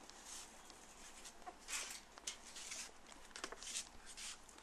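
Faint handling noises of a bicycle being wheeled in and parked on its kickstand: a run of short scrapes and a few sharp clicks.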